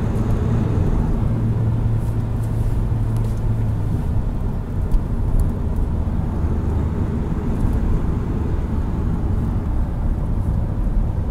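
Car interior noise while driving: a steady engine hum and road rumble heard from inside the cabin. The engine note drops to a lower hum about four seconds in.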